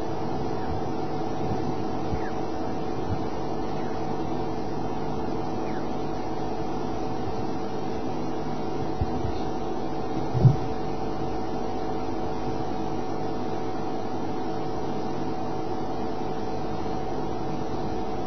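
A steady low hum made of several constant tones, with one brief low thump about ten seconds in.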